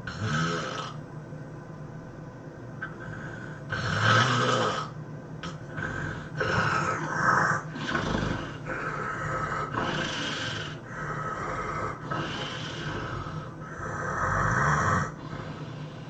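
A person snoring loudly: about seven rasping snores at irregular intervals of one to two seconds, over a steady low hum.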